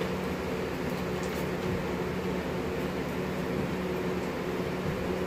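Electric box fan running, a steady hum with a low constant tone.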